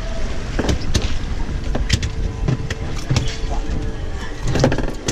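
Low, steady rumble of a fishing boat's engine and wind at sea, with many sharp knocks and clicks scattered through it. A faint steady hum sounds for a couple of seconds in the middle.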